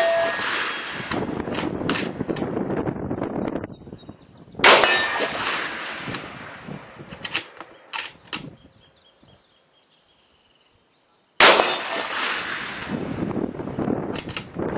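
Three shots from a Nemesis Arms Windrunner .308 bolt-action rifle: one at the very start, one about four and a half seconds in and one near eleven seconds in. Each is a sharp crack with a long fading echo, followed a second or so later by a run of quick metallic clicks and clacks.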